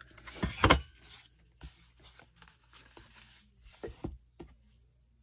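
A 1.5-inch hand paper punch clunking as it is pressed down through paper to cut a thumb notch, the loudest sound, about half a second in. Quieter paper rustling and light taps follow as the pockets are handled.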